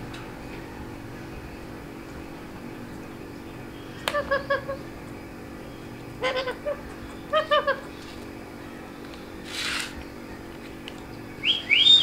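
Rose-ringed parakeet (Indian ringneck) giving three short bursts of quick chattering calls, then two quick rising whistles near the end, which are the loudest sound. A short breathy hiss comes between them.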